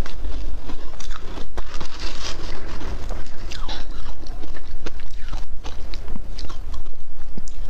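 Close-miked crunching of shaved ice, a dense run of crackly crunches and clicks, with a metal spoon digging and scraping through the ice in a plastic tub.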